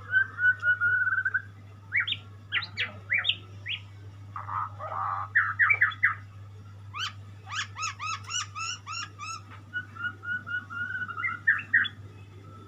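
A murai songbird singing a varied song of whistled phrases: quick note runs and rising sweeps, a harsh rasping note about five seconds in, and then a fast series of repeated looping notes, about four a second. A steady low hum runs underneath.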